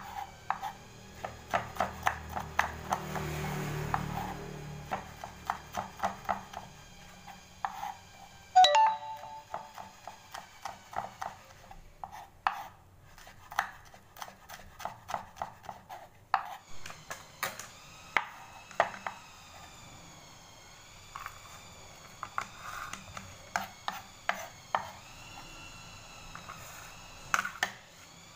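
Kitchen knife chopping red chillies on a wooden cutting board: quick, repeated knocks of the blade against the board, several a second, in runs with short pauses.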